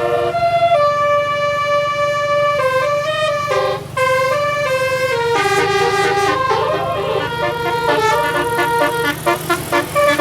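Bus telolet horn playing a tune in several tones. The first notes are held for a second or more, then quicker runs of notes step up and down, all over a low steady rumble.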